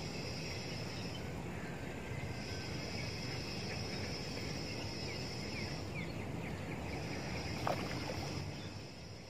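Water sloshing and splashing at the bank as a hooked wild catfish is played in and landed, over steady wind noise. A high, even buzz comes and goes three times, with a few small ticks and one sharp click near the end.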